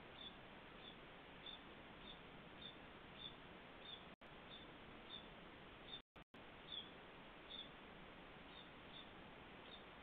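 Faint, short, high chirps repeated about every two-thirds of a second over a steady hiss: young Carolina wrens calling from the nest. The audio cuts out briefly about four seconds in and again about six seconds in.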